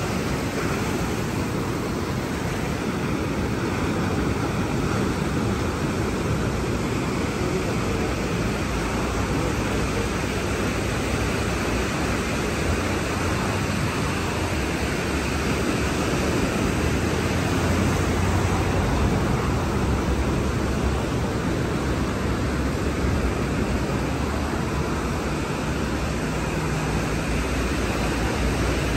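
Steady rushing noise of sea surf, with wind buffeting the microphone in uneven low rumbles.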